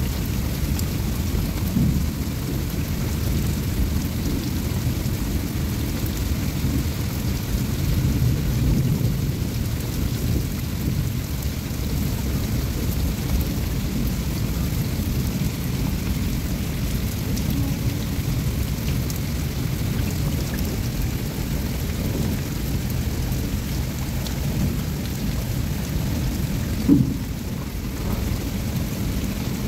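Heavy rain hissing down over the steady low rumble of a long freight train's open-top wagons rolling past. There is one short knock near the end.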